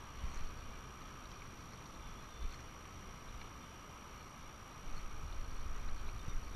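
Wind rumbling on the microphone over a steady background hiss, the gusts growing louder about five seconds in.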